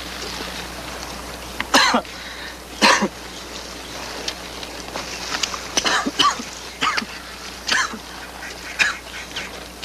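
A person coughing on cigarette smoke: two hard coughs about two and three seconds in, then a string of shorter coughs.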